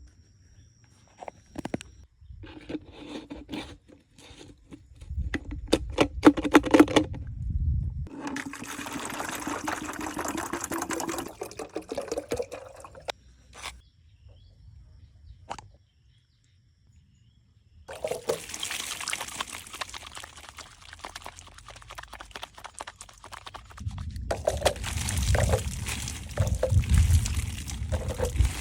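Water being poured and trickling in stretches, broken by knocks and handling clatter. There is a short near-silent gap about midway.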